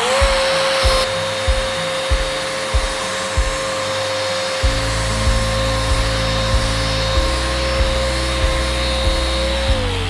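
Festool Rotex sander running in its aggressive Rotex mode, a steady high whine over a hiss. It starts up right at the beginning and winds down, falling in pitch, near the end. Background music with a steady beat plays underneath.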